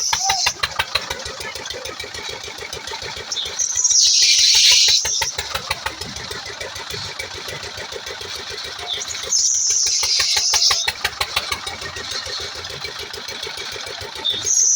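A boat engine running steadily with a fast, even pulse, with bursts of loud hiss about every five to six seconds.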